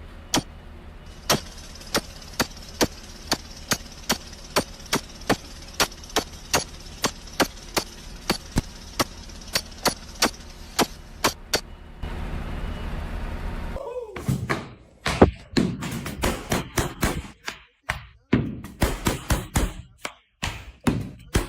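Repeated sharp knocks, evenly spaced at about two to three a second for some twelve seconds. After a short stretch of steady noise, a faster, irregular run of knocks and impacts follows.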